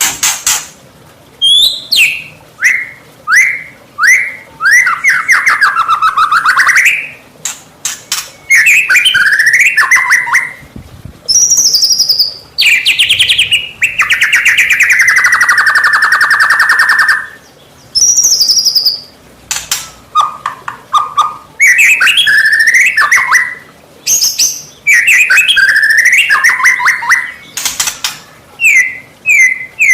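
White-rumped shama singing a full, fast 'gacor' song: loud varied phrases of quick sweeping notes and trills, broken by short pauses, with one long rapid rattle about midway. It is the kind of song played to provoke other shamas into answering.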